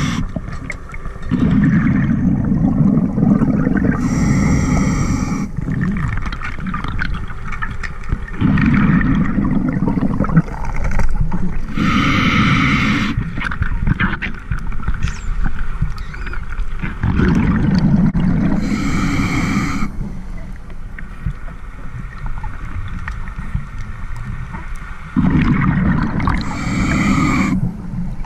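Scuba diver breathing through a regulator underwater: each breath is a hiss of inhalation and a gurgling rush of exhaled bubbles, repeating about every seven seconds.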